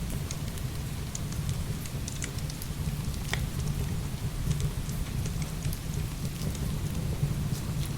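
Heavy rain pouring in a steady low rumble, with scattered sharp crackles and pops of a wood fire burning.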